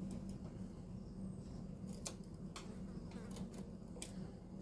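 A few sharp clicks, about three, over a steady low hum.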